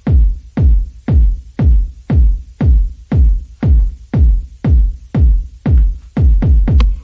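Background electronic dance music with a steady drum-machine kick beat, about two beats a second.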